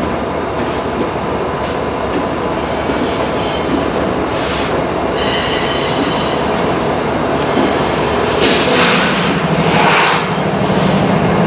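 Freight train moving through a rail yard: a steady rumble of wheels on rail with thin high-pitched wheel squeal, and short bursts of louder hiss in the second half.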